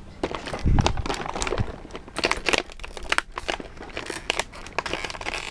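Plastic toy packaging crinkling and crackling in rapid irregular clicks as small accessories are worked loose from it, with a dull knock a little under a second in.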